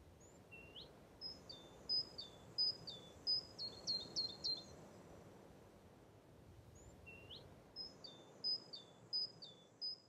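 A songbird singing two phrases of high notes, each opening with a short rising note and going on with a run of quick notes that step down in pitch; the second phrase starts about seven seconds in. Faint steady background noise lies under the song.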